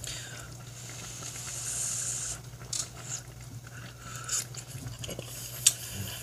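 A utensil clicking against a pan of creamy pasta as a bite is lifted out and eaten, with a sharp click about five and a half seconds in. Under it, a soft hiss of the sauce simmering in the pan and a steady low hum.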